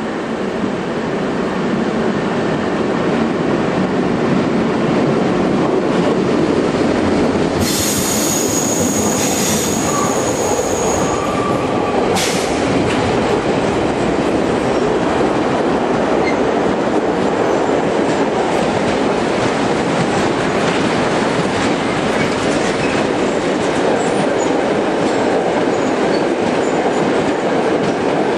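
A long freight train of empty flat wagons, hauled by a Class 60 diesel locomotive, rolling steadily past at close range: continuous rumble and clatter of wheels on the rails with wheel squeal. A brief high whine is heard about a third of the way in, and the opening seconds are a diesel multiple unit running in.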